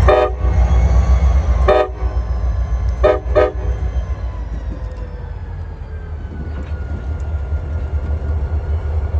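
Diesel freight locomotive's horn sounding four short blasts in the first few seconds, the last two close together, over the low rumble of the passing train.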